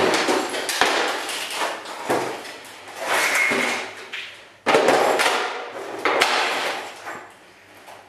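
Sledgehammer blows on the back of a Sony CRT television, cracking and breaking off its plastic rear housing, with broken pieces clattering. There are several separate impacts, and the sharpest comes about four and a half seconds in.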